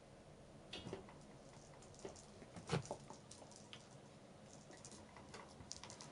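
Faint scattered knocks and pattering of house cats moving and playing on carpet among wire cages, with one louder thud about three seconds in.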